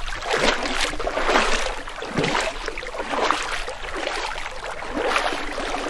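Paddling sound effect: a paddle dipping and splashing through water, the strokes swelling about once a second over steadily running water.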